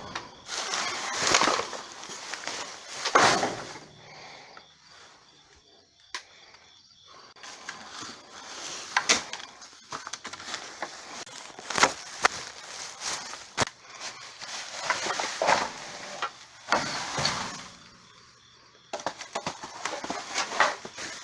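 Irregular rustling and handling noise, with scattered sharp knocks and clicks, as items are rummaged through and moved about in a dumpster.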